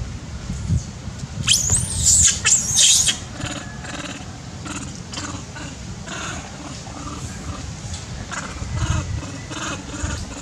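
Macaques screaming: a burst of shrill, arching screams about one and a half seconds in, followed by a run of shorter, fainter repeated squeals and chatter.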